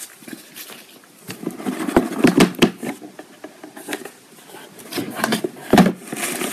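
A cardboard product box being opened and handled: scattered taps, scrapes and rustles, with a cluster of knocks about two seconds in and a louder one near the end.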